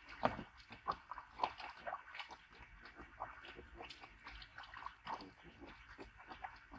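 Hollow plastic ball-pit balls clattering and knocking against each other and the plastic pool as a dog moves among them: many quick, irregular clicks, busiest in the first couple of seconds.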